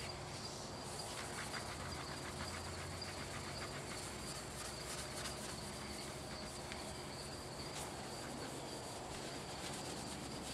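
A solvent-wet rag wiping over a polypropylene kayak paddle blade in faint, soft strokes, against a steady high chirring of insects.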